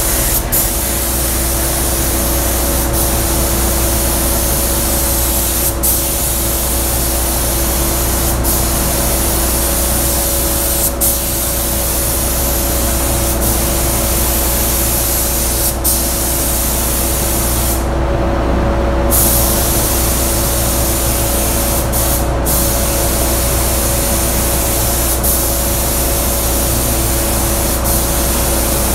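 Compressed-air gravity-feed spray gun hissing steadily as it sprays paint onto a car door. The hiss breaks briefly every few seconds, with a longer break of about a second roughly two-thirds through. A steady low hum runs underneath.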